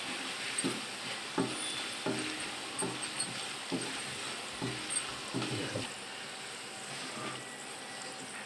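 Peanut pakora sizzling in hot oil in an iron kadhai, with a metal spoon knocking and scraping against the pan about once a second as the pieces are stirred and lifted out. The knocking stops about six seconds in and the oil keeps sizzling.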